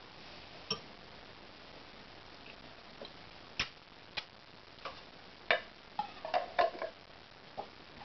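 A glass jar being handled: about a dozen light, irregular clinks and taps of glass, a few in the first half and most bunched together a little past halfway.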